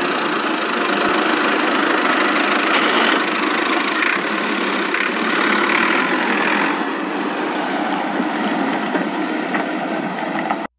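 Homemade model tractor's small electric motor and gears whirring steadily as it drives, with slight swells in the middle.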